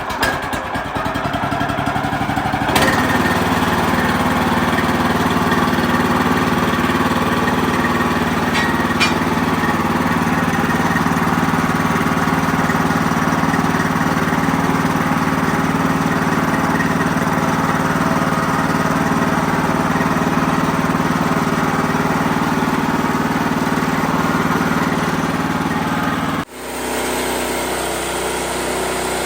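Wood-Mizer LX55 band sawmill's engine running steadily, stepping up to a louder, steady note about three seconds in. Near the end the sound drops off sharply, then continues quieter.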